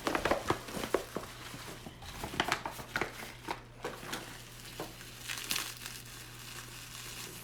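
Paper packing crinkling and rustling unevenly as it is unwrapped by hand.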